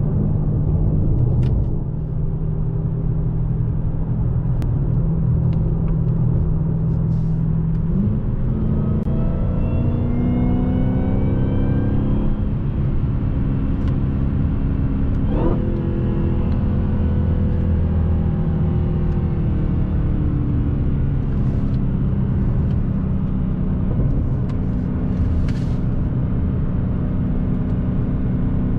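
Dodge Challenger SRT Hellcat Widebody's supercharged 6.2-litre V8 running at cruise with road noise, heard from inside the cabin. A few seconds' rise in pitch comes about a third of the way through.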